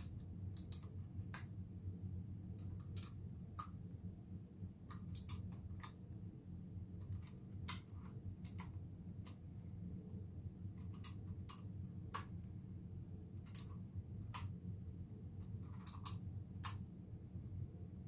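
Keycaps being pressed one by one onto a Ducky Pocket's Cherry MX Blue switches: sharp, irregular clicks as each cap seats and the switch clicks, over a low steady hum.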